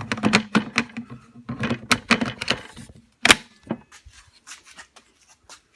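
Plastic clicks and knocks from fitting a Ryobi 18V battery pack into a cordless miter saw and handling the saw, with one loud knock about three seconds in and fainter clicks after it. The saw's motor does not start.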